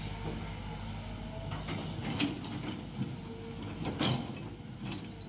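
Kobelco long-reach excavator's diesel engine running steadily as the boom swings and the bucket comes down, with two sharp metallic clanks about two seconds apart.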